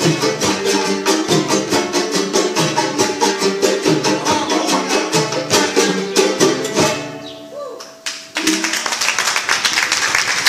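A son jarocho ensemble of strummed jaranas with a djembe plays a fast, even strumming rhythm. About seven seconds in, the last chord rings out and fades. The audience then breaks into applause.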